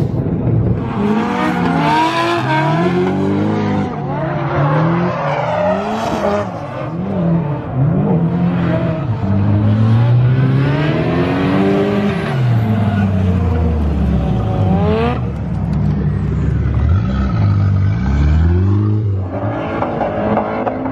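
Two drift cars' engines revving hard, their pitch rising and falling again and again as they slide in tandem, over a hiss of spinning, squealing tyres.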